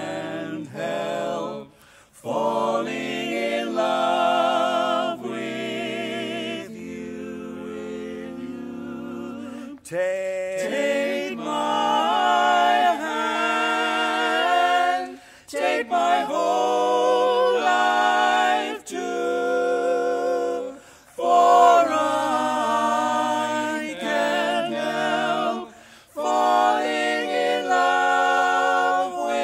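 Male barbershop quartet singing a cappella in close four-part harmony: held, ringing chords in phrases, with short breaks between phrases.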